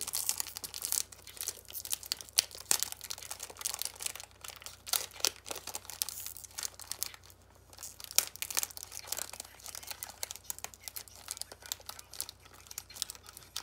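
Irregular crinkling and crackling of a snack bag being handled close to the microphone: a dense run of small crackles with a short lull about halfway through.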